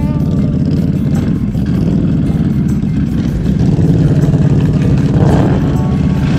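ATV engine running steadily, picking up a little about four seconds in.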